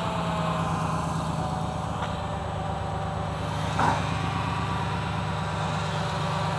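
Car engine idling with one spark plug removed, so that the open cylinder pumps air through a compression-gauge hose into a tyre; a steady, fast, even low pulsing. A brief knock about four seconds in.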